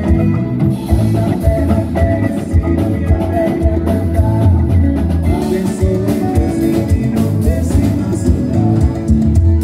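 Live band playing loudly, with electric bass, guitar, drum kit and men singing to a steady beat.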